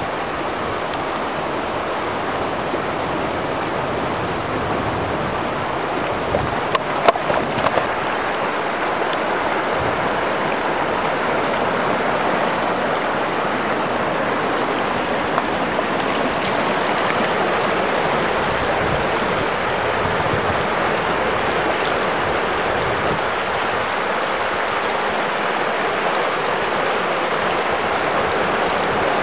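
River water flowing over rocks in a shallow run, a steady rushing. A few brief knocks sound about seven seconds in.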